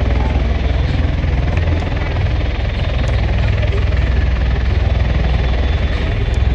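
V-22 Osprey tiltrotors running on the runway in helicopter mode, their rotors and engines making a loud, steady noise that is heaviest in the low end.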